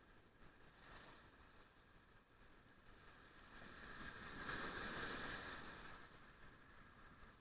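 Faint surf on the beach: a wave washes in, swelling about four seconds in and fading away again.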